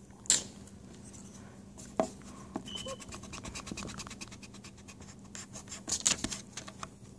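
Pencil writing on paper close to the microphone: a run of short scratchy strokes, with a few sharper taps, the loudest near the start.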